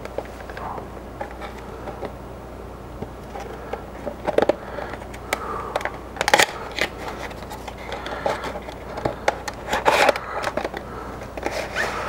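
Clear plastic clamshell package being handled and slid out of its box: irregular crackling, clicks and scrapes of the thin plastic, with sharper snaps about four, six and ten seconds in.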